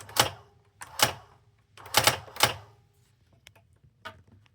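Brother SX-4000 electronic typewriter typing the word "hello": four loud, sharp print strikes, then a few fainter clicks near the end.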